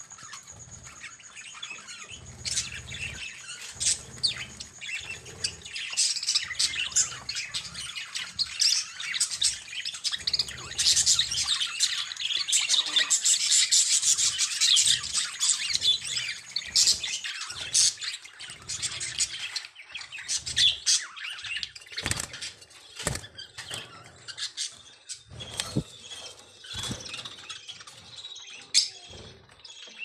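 Fischer's lovebirds chattering: a dense run of rapid high chirps and squeaks, busiest and loudest around the middle, with a few sharp clicks in the second half.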